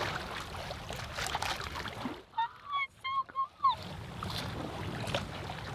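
Wind on the microphone and water moving along a sailboat's hull. About two seconds in, the noise drops away for a second and a half, and four short high chirps are heard.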